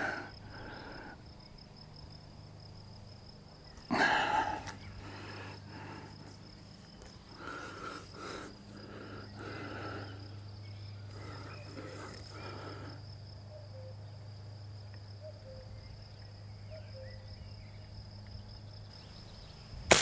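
Crickets chirping steadily in the grass, with scattered knocks and clicks of a Benjamin Sheridan .20 multi-pump air rifle being handled. A single sharp crack of the air rifle firing comes right at the end.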